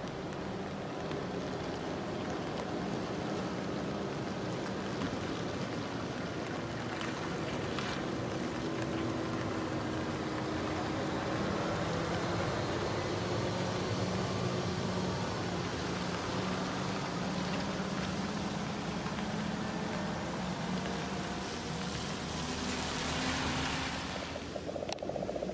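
Heavy tractor-trailer's diesel engine running at low speed, its engine note slowly rising and falling, over the hiss of tyres on a wet road. Near the end a louder rush of tyre hiss swells, then the sound changes abruptly.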